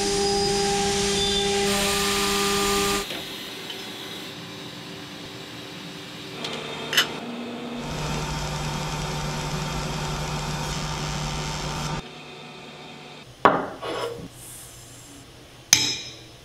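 A DN Solutions SVM 4100 vertical machining center end-milling a metal coaster blank: a steady cutting noise with several held tones that stops about three seconds in. A quieter steady hum follows from the Trumpf TruMark laser marking station, and near the end come two sharp clinks as a mug is set down on the metal coaster.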